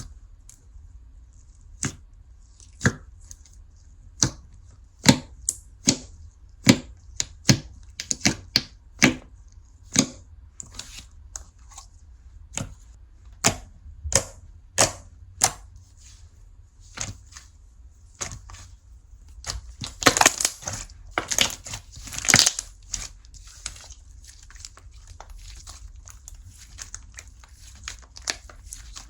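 Slime being squished and pulled by hand, making a string of sharp clicking and popping sounds at irregular spacing, with a denser run of crackling about two-thirds of the way through.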